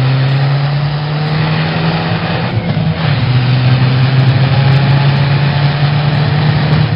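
Car engine running steadily at a fairly constant pitch, dropping slightly about three seconds in.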